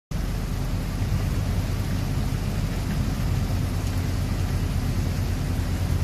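Heavy rain and wind: a steady hiss of rain beating down, over a deep low rumble of wind.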